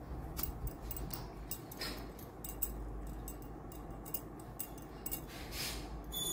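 Hand-held vegetable peeler scraping the skin off a bottle gourd in a quick run of short strokes, with a couple of longer scrapes.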